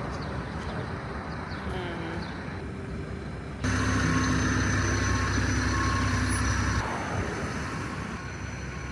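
Road traffic with a motor vehicle's engine running close by, a steady low rumble. About three and a half seconds in a louder, steadier engine hum begins abruptly and cuts off about three seconds later.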